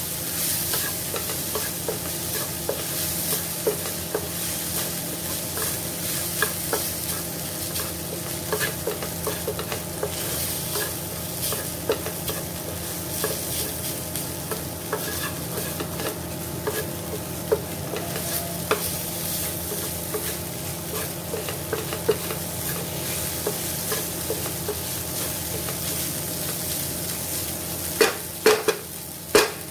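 Cooked rice sizzling in ghee in a non-stick frying pan while a wooden spatula stirs and turns it, with many soft scraping clicks. A few louder knocks come near the end.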